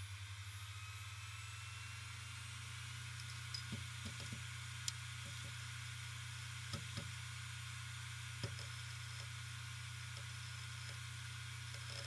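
Hard drive spinning up and running: a steady low hum, with a faint rising whine that settles in the first couple of seconds. From about three and a half seconds in come a handful of short, scattered clicks from the read/write heads seeking.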